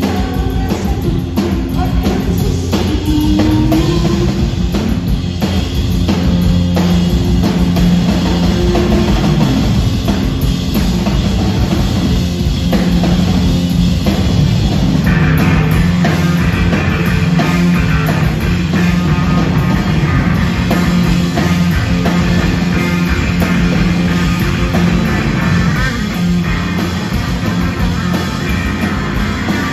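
Live rock band playing loudly: electric guitar over two drum kits played together, with driving drums throughout and the guitar growing brighter about halfway through.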